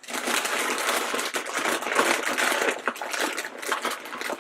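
Hand rummaging through a plastic bin full of blind bags: a steady crinkling of plastic and foil packets, with many small clicks as the bags rub and shift.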